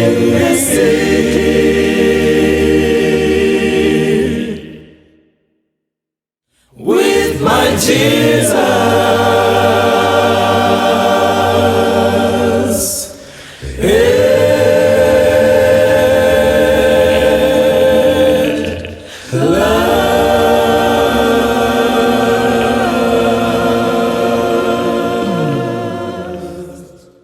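A cappella gospel choir singing in close harmony, without instruments. The singing stops for about two seconds around five seconds in, then comes back as three long held chords, and the last one fades out at the end.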